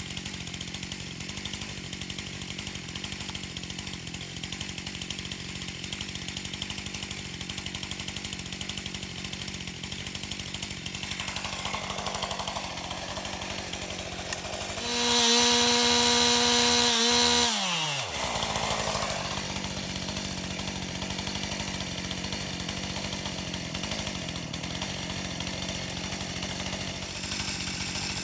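Chainsaw running steadily while cutting into a tree being felled. About halfway through it revs louder and higher for two or three seconds, then the pitch drops back quickly.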